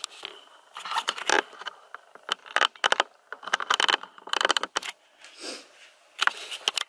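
Plastic shopping bag rustling in irregular bursts, with light clinks and scrapes as groceries are pulled out of it.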